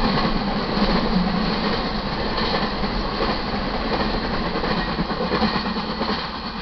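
Intermodal freight cars carrying highway trailers rolling past, steel wheels clattering over the rail joints. The noise fades near the end as the last car goes by.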